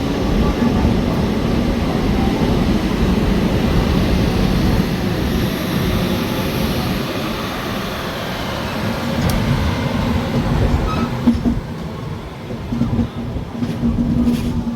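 Indian Railways express train running: a steady rumble of wheels on the track, heard from on board. It grows more uneven, with a few sharper knocks, in the last few seconds.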